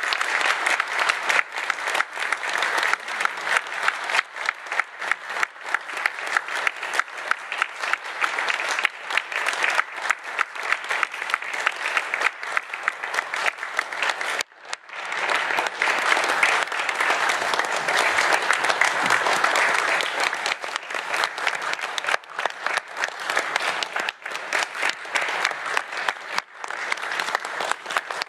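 A roomful of people applauding, a dense steady patter of many hands clapping, breaking off for an instant about halfway through before carrying on.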